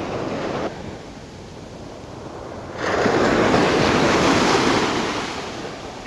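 Ocean surf breaking and washing up a sandy beach. A louder wash of surf comes in about three seconds in and slowly fades away.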